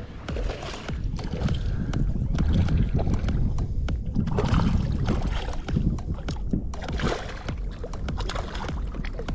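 Water splashing and sloshing around a fishing kayak, with short knocks of gear against the hull and wind on the microphone.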